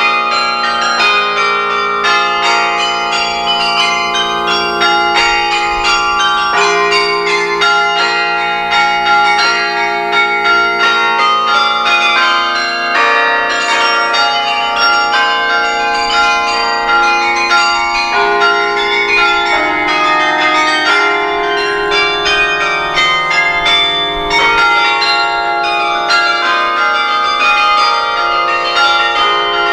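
Carillon bells played by hand from the baton keyboard: a carol arrangement with quick struck melody notes over lower bells that ring on for several seconds, each bell still sounding as the next is struck.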